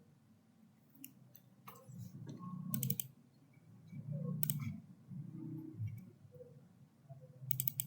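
Computer mouse clicking several times, some clicks in quick pairs and a cluster near the end, with low muffled sounds in between.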